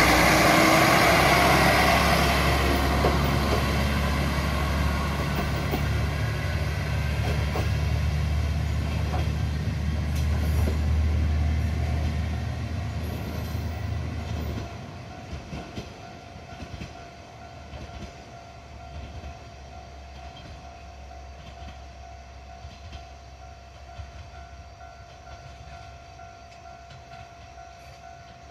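Nagaragawa Railway diesel railcar pulling away from the station, its engine running with rail noise and fading as it recedes. About fourteen seconds in the engine note drops sharply, leaving a faint distant rumble.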